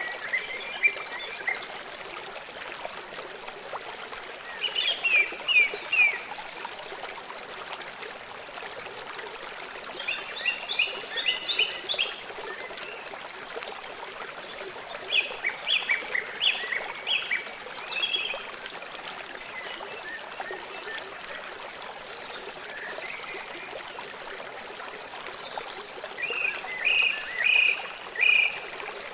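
A small stream running with a steady trickling rush. Over it a songbird sings short phrases of quick, high notes, five times at intervals of several seconds.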